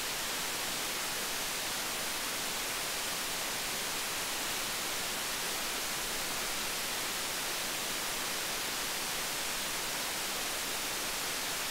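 Steady hiss with no tones or breaks, heaviest in the treble: the amplified self-noise of an MC33079 low-noise op amp in a gain-of-101 test circuit, measured at about −80 dB.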